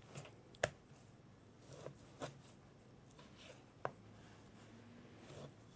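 Chef's knife slicing raw pork butt into strips on a plastic cutting board: faint cutting with a handful of short, sharp taps of the blade or meat against the board, the clearest about half a second in and near four seconds in.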